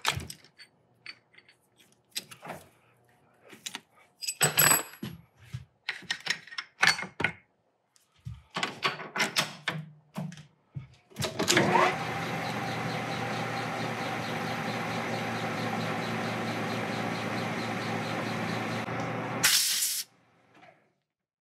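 Metal tools and parts clinking and knocking as work is set up, then a metal lathe starts about eleven seconds in and runs at a steady hum of several tones. A short loud burst of noise comes near the end, just as the lathe stops.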